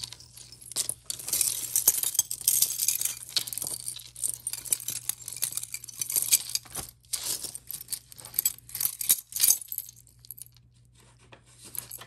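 Costume jewelry being handled and sorted by hand: beads, chains and metal pieces clinking and jangling with rustling, many quick clicks that die down near the end.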